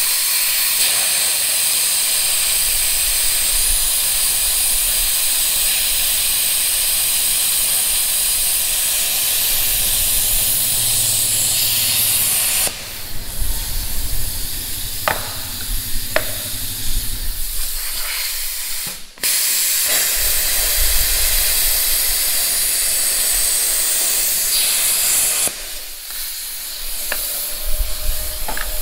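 A plasma cutter runs with a steady, loud hiss as it cuts through thick steel bar. It breaks off briefly twice partway through and continues more quietly near the end, with a couple of metal clinks in between.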